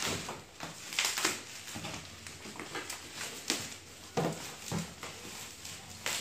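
Bubble wrap and plastic wrapping crinkling and rustling as they are pulled and torn off a cardboard box, in irregular crackles, loudest about a second in and again past the middle.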